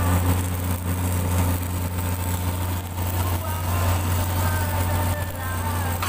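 An engine running steadily at idle: a low, even drone that does not change.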